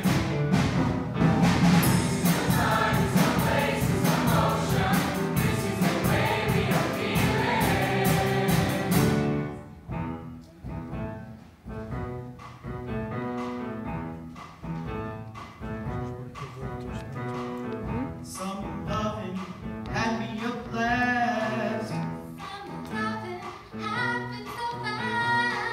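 Large mixed choir singing with piano accompaniment. The full, loud section breaks off suddenly about nine seconds in, a quieter, sparser passage follows, and the voices build again near the end.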